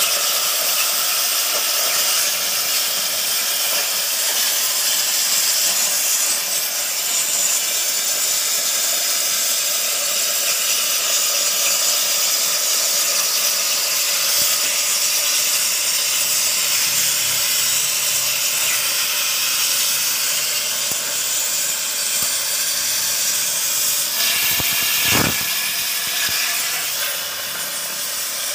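CNC plasma cutter torch cutting metal plate: the plasma arc gives a loud, steady hiss. Near the end there is a brief, louder burst.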